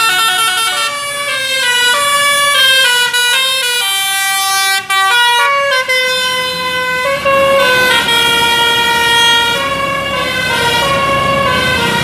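Telolet basuri bus horn playing a loud tune of quick, stepping notes, several tones sounding together, with some notes held longer in the second half.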